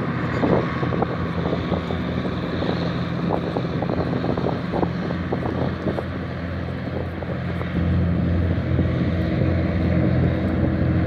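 Hovercraft's engines and twin ducted air propellers droning steadily as it runs over the water: a low hum made of several steady tones, growing louder about eight seconds in.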